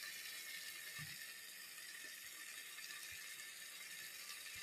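Maggi noodles in broth simmering in an electric rice cooker: a faint, steady high hiss, with a couple of soft low knocks.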